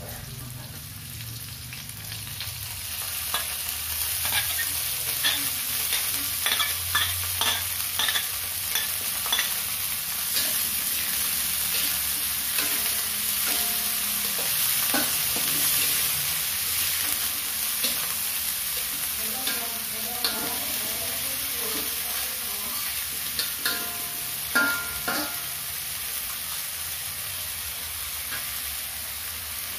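Chopped shallots, garlic and spring onions sizzling in hot oil in a wok while a metal spatula stirs them. The spatula scrapes and clicks against the wok over and over, easing off near the end and leaving a steady sizzle.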